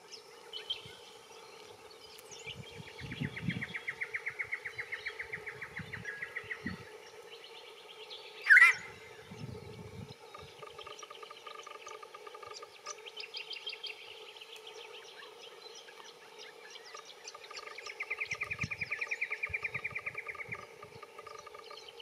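Little friarbird calling in long, rapid runs of repeated notes: one about two seconds in lasting some four seconds, another around thirteen seconds, and one near the end, with shorter bursts between. A single sharp click about eight and a half seconds in is the loudest sound.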